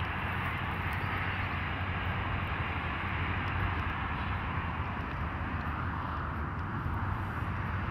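Steady roar of distant road traffic, an even hiss with a low hum underneath.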